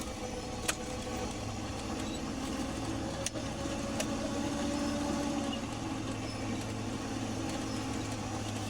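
Pickup truck running with a steady low engine and cab drone, heard from inside the cab, with a few light clicks or knocks.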